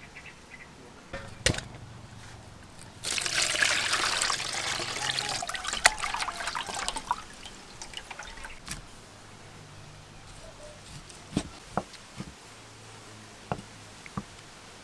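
Water sloshing and splashing as a piece of raw beef is washed by hand in a metal pot of water, loudest for about four seconds starting some three seconds in. Scattered drips and light sharp taps come before and after.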